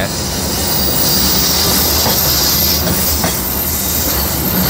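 Passenger coaches of the Pasundan train rolling past on the adjacent track: a steady rumble of wheels on rail with a high squealing hiss from the wheels, and a couple of sharp clacks over rail joints.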